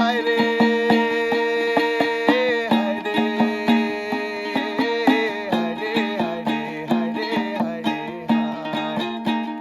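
Instrumental background music: quick plucked string notes over a steady low drone, with a long held note near the start that bends in pitch after about two seconds.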